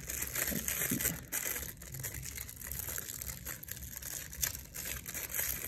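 Thin clear plastic packaging crinkling and crackling irregularly as fingers handle and pull at the cellophane sleeve around a marker pen.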